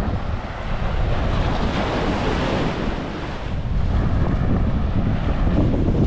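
Ocean surf washing on a beach, its hiss swelling and fading around the middle, with wind buffeting the microphone as a steady low rumble.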